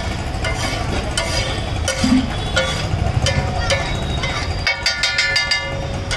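Flat metal spatula clanking and scraping on a large tawa griddle as pulao is tossed and spread, with ringing clinks about every half second and a quick flurry of clinks about five seconds in. A steady low background noise runs underneath.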